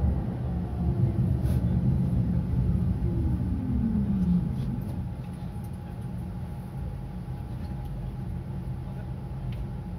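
Low vehicle rumble heard from inside a tram as a city bus passes close alongside, with a falling whine about three seconds in. After that the rumble drops to the tram's quieter, steady running noise with a faint steady hum.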